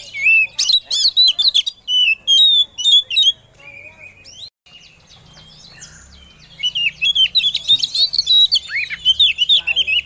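Female oriental magpie-robin (kacer) singing in its calling-to-the-male mode: rapid, loud runs of varied chirps, whistles and sharp clicks, in two spells with a quieter break of about three seconds in the middle.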